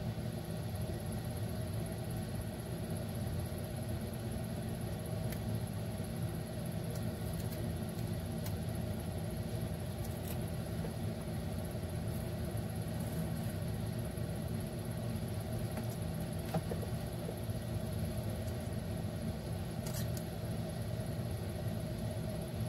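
Steady low machine hum with a few faint clicks and taps.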